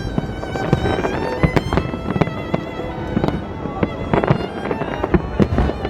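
Fireworks going off in rapid, irregular succession, many sharp bangs and cracks, under classical violin music with sustained notes.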